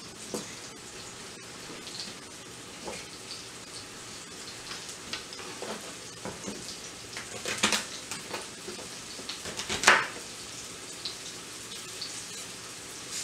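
Rump roast searing in a skillet on the stove: a steady sizzle, with a few sharp snaps and clicks over it, the loudest about ten seconds in.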